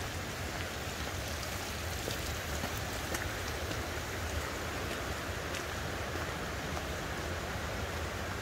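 Steady rush of running water from a mountain stream, with scattered light crunches and ticks of footsteps on a rocky gravel trail.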